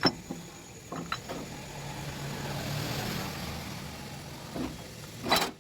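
A few sharp metal clinks of gearbox parts being handled, under a low engine hum that swells and fades in the middle. A louder rush comes near the end and cuts off suddenly.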